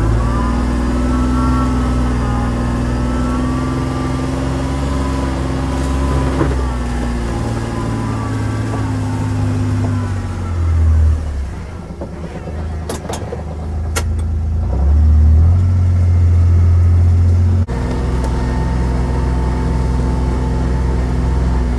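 Utility vehicle (Mule UTV) engine running as it drives at low speed, with a steady low drone that picks up briefly twice, with a pair of sharp clicks in the middle. The sound cuts off abruptly for an instant near the end, then carries on.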